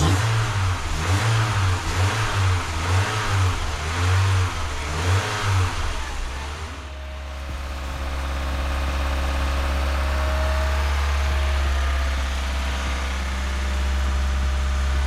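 BMW Z3's 1.9-litre M44 four-cylinder engine revved in a series of quick blips, about one a second, then settling to a steady idle about six seconds in, freshly restarted after an oil change and new plugs.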